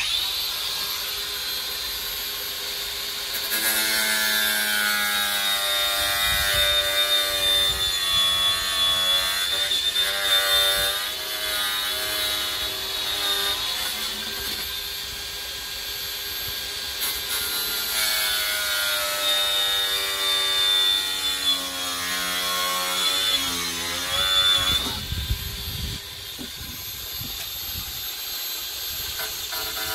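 Cordless angle grinder running and cutting, its motor whine sagging and recovering in pitch as the disc is pressed into the work. It gets louder about three seconds in and eases off near the end.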